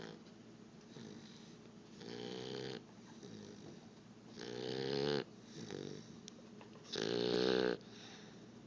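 Slow, deep snoring from someone asleep: three drawn-out, pitched snores about two and a half seconds apart, each louder than the last, with a short weaker one between the second and third.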